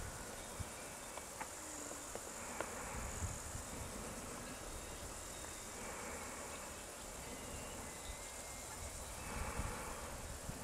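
Insects chirring in a thin, steady high buzz, over low, uneven wind rumble on the microphone.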